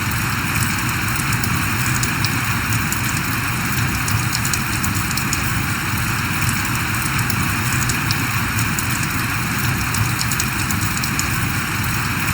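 Steady rain falling, a constant even hiss with scattered drops ticking sharply on a surface.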